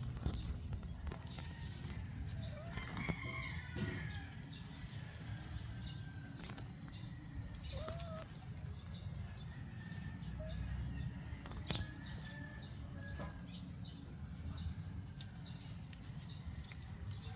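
Outdoor garden ambience: a steady low rumble with scattered short chirping bird calls and light scattered ticks.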